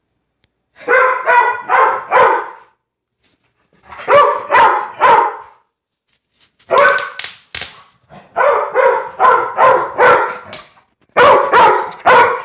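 Blue-nose pit bull barking back in bursts of three to six short, pitched barks with pauses between, a grumbling 'talking back' argument with its owner.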